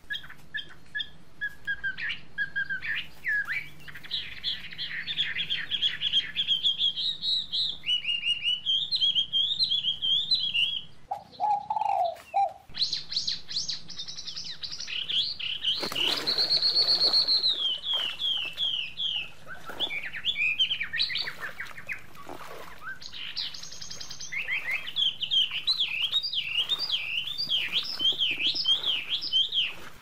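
Small birds chirping and twittering in quick runs, nearly without pause, with one louder, longer call about sixteen seconds in and a faint steady low hum underneath.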